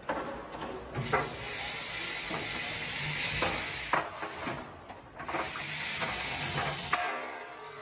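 Automatic pallet stacking machine running with a steady hissing mechanical noise, broken by a few sharp metallic clunks about a second, four seconds and seven seconds in. The noise stops near the end.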